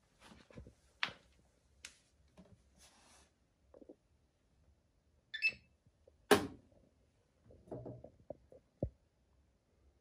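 Scattered light knocks and clicks around a Bosch front-loading washing machine early in its wash programme, with a short beep about five seconds in followed by a sharper knock, and a dull thud near the end.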